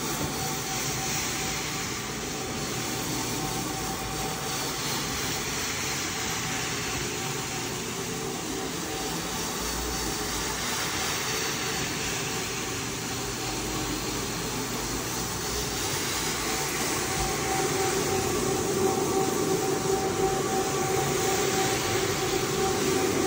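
Steady machine noise with a constant hum, growing a little louder with a deeper hum joining about three quarters of the way in.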